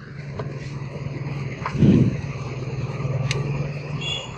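A steady low mechanical hum that stops just before the end. A short dull thud comes about two seconds in, with a few faint clicks.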